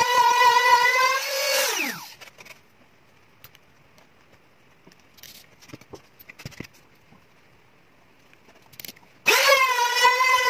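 Handheld trim router running at full speed while routing away an old bridge on a classical guitar, then switched off about a second and a half in, its whine falling away as it spins down. A few seconds of quiet with faint taps and scraping follow, and near the end it is switched on again and quickly spins back up to a steady high whine.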